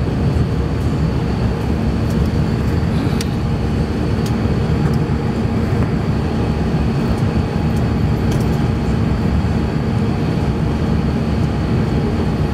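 Steady cabin roar of an Airbus A350-900 climbing out after takeoff: its Rolls-Royce Trent XWB engines at climb power and the rush of air along the fuselage, with a few steady hum tones and a thin high whine over a deep rumble.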